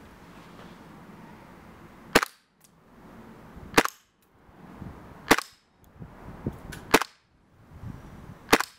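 Tokyo Marui HK45 Tactical gas blowback airsoft pistol, its metal suppressor fitted, firing five single shots on red gas, about a second and a half apart. Each shot is a short sharp crack.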